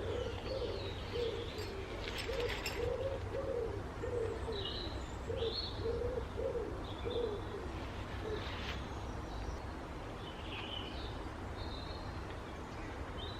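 A pigeon cooing: a run of low, repeated coos over the first seven seconds or so, with small birds chirping now and then.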